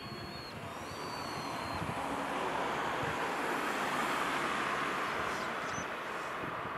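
A distant vehicle's steady rushing rumble, swelling to its loudest about four seconds in and then easing a little, with a few thin high chirps in the first two seconds.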